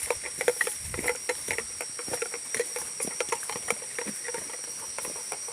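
Steady high-pitched drone of forest insects, with irregular light ticks and patter over it.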